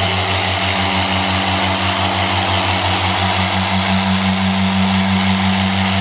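Harbor Freight 6-inch variable-speed dual-action polisher running steadily at its highest speed setting, its foam pad buffing polish into car paint. A steady motor hum with a fast, even pulsing from the pad's orbit.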